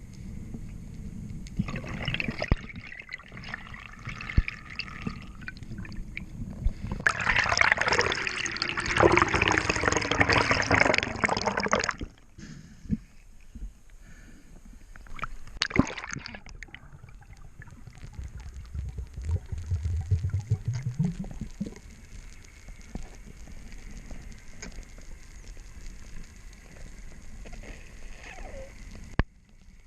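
Water sloshing and splashing, loudest in a long stretch from about 7 to 12 seconds in, with a sharp knock about 16 seconds in.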